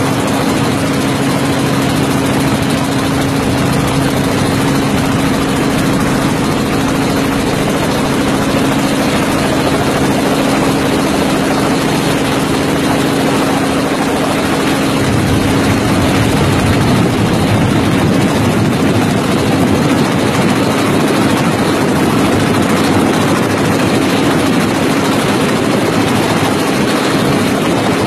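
Helicopter engine and rotor noise heard from on board, a loud steady drone with a constant low hum. About halfway through the lowest part of the hum drops away and the drone changes.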